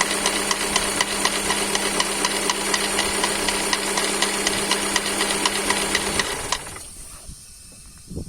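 Toyota 4ZZ-FE four-cylinder engine running with a steady, evenly spaced knock, which the owner suspects comes from worn crankshaft bearing shells. The engine is switched off about six seconds in and the sound dies away.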